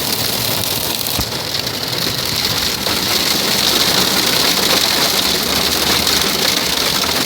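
Heavy rain pouring down and splashing on hard surfaces, a steady dense hiss, with one low knock about a second in.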